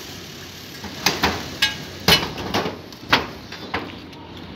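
A run of irregular knocks and clanks, about seven over four seconds, from handling tools and metal conduit on a corrugated metal roof.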